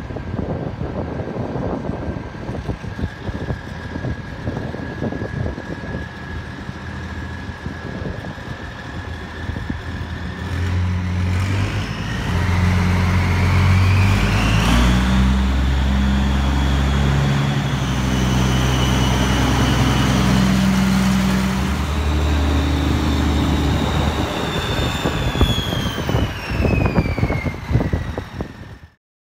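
Case IH 1455 XL tractor's six-cylinder turbo diesel running with a steady turbo whistle. About ten seconds in the engine revs up and gets louder, and the turbo whistle rises in pitch and holds high, then falls away near the end.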